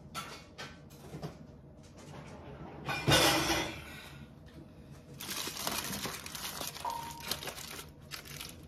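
Kitchen clean-up handling sounds: a few light clicks, a loud brief rustling clatter about three seconds in, then a few seconds of crinkling and rustling.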